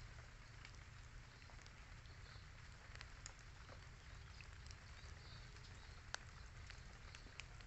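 Faint light drizzle: a soft steady hiss with scattered single raindrop ticks on leaves and plastic ponchos, over a low wind rumble on the microphone.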